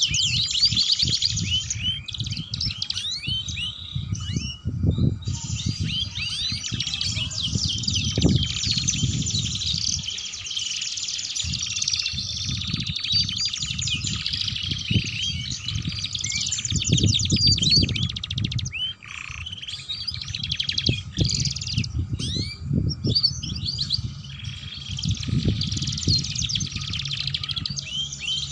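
Domestic canaries singing: long, fast rolling trills and rapid chirps, nearly continuous, with a few brief pauses.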